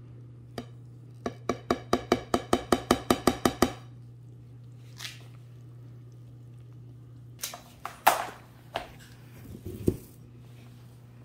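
A quick, even run of about a dozen ringing clinks, roughly five a second, as a kitchen utensil strikes a glass mixing bowl. A few scattered knocks and a scrape follow later. A steady low hum sits underneath.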